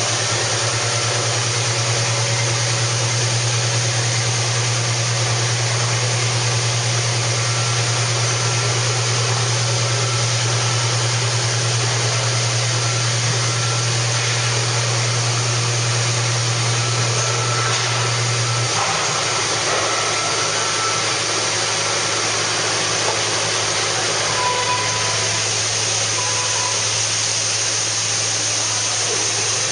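Large industrial machine running: a steady low hum under a constant hiss. About 19 seconds in the hum drops a little in pitch and fades, then comes back stronger a few seconds later.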